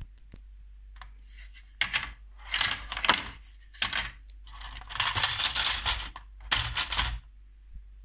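Small hard plastic toy parts being handled and clattered, in five or so short rattling bursts over about five seconds.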